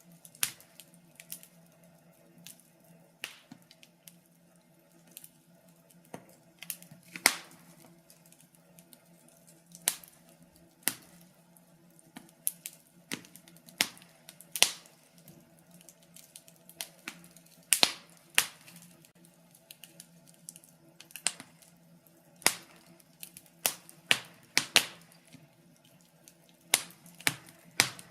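Wood fire crackling in a fireplace: irregular sharp pops and snaps at uneven intervals, over a faint steady hum.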